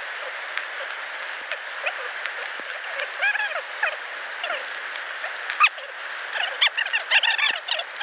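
Outdoor ambience: many short chirping animal calls over a steady rushing hiss, busiest about three seconds in and again near the end, with a few sharp clicks mixed in during the last couple of seconds.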